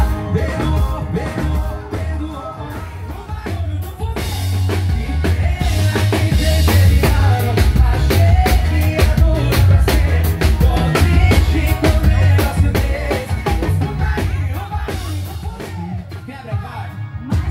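Live band music with a drum kit keeping a steady beat and a male singer.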